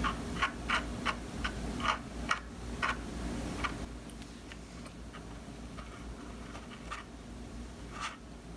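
Small sharp ticks and taps of a wooden toothpick pressing a glue-soaked paper-towel patch onto the paper edge of a speaker cone, to mend its eaten-away surround. There are several ticks a second at first, then a few scattered ones, over a low steady hum.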